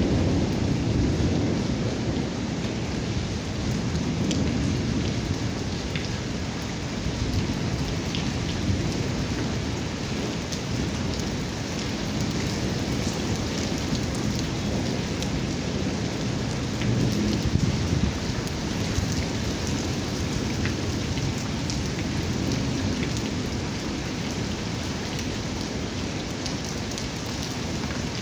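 Heavy rain falling steadily onto wet ground, with scattered sharp drop hits, under low rolling thunder. The thunder swells near the start and again about two-thirds of the way through.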